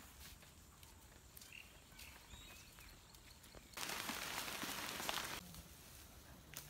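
Faint footsteps of people walking on a dirt path. About halfway in, a loud rustling, crunching hiss lasts about a second and a half and then cuts off suddenly, like feet and bodies pushing through dry leaf litter and undergrowth.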